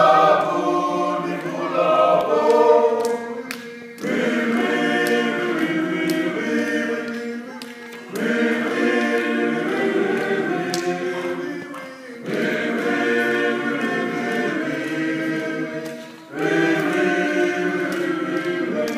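The Fiji sevens rugby team singing together unaccompanied as a choir. The singing goes in phrases of about four seconds, each coming in strongly and fading away before the next.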